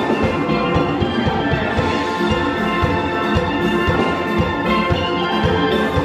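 Steel band playing live: several steel pans ringing out a melody and chords over a steady drum beat.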